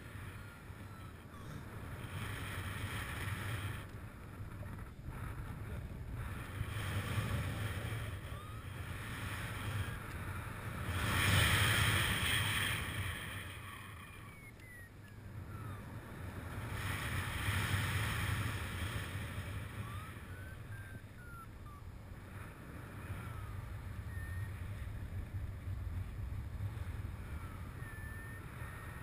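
Wind rushing over a camera microphone carried by a paraglider pilot in flight, swelling and easing in gusts, strongest about eleven seconds in and again about eighteen seconds in.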